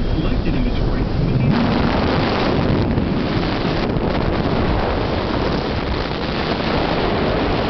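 Wind buffeting the microphone aboard a moving river boat, a steady rushing noise heaviest in the low end. About a second and a half in it suddenly turns brighter and hissier.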